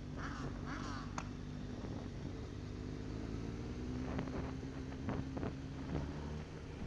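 Motorcycle engine running at a steady cruise, with wind rushing over the microphone and a few brief knocks or rattles in the middle.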